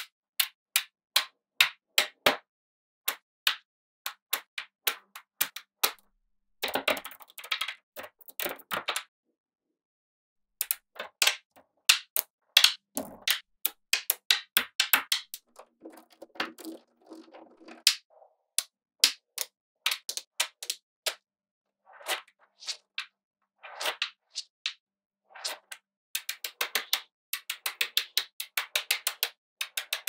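Small magnetic steel balls clicking as they snap together while being placed by hand. The sharp single clicks come irregularly, with stretches of rapid clattering when several balls meet at once.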